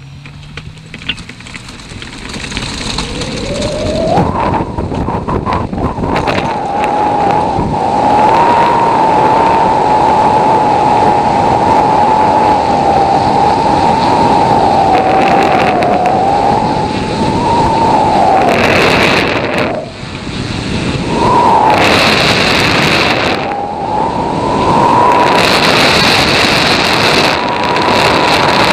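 Ultralight tow plane's engine winding up over the first few seconds as an aerotow launch begins, then running at a steady high pitch through the climb, with wind rushing over the microphone. The engine note dips briefly twice in the second half.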